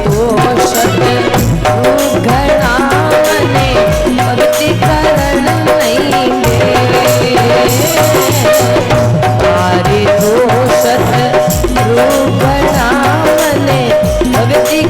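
Rajasthani folk bhajan music: a hand drum keeps a steady beat under jingling rattle percussion, with a wavering melody line over held drone tones.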